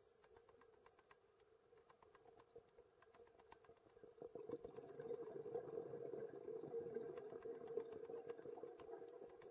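Faint underwater ambience picked up by the camera: many scattered light clicks with a steady low hum that swells about halfway through.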